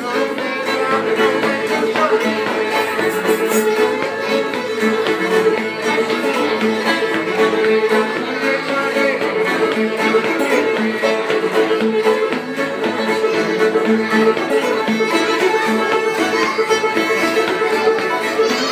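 Old-time string trio playing an instrumental passage: a bowed fiddle carries the melody over banjo and acoustic guitar keeping a steady rhythm.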